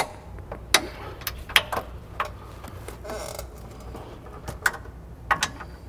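Scattered sharp clicks and a short creak from a long wrench turning an 18 mm front control arm bolt through its final 90-degree angle of tightening. The clicks come in a cluster over the first two seconds and again near the end.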